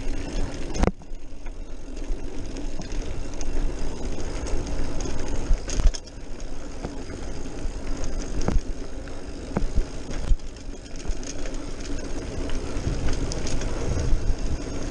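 Trek Marlin 5 mountain bike rolling fast downhill on a dirt trail: a steady rush of tyre noise over packed dirt and wind on the microphone, with a few sharp clanks from the bike over bumps at about 1, 6 and 8.5 seconds in.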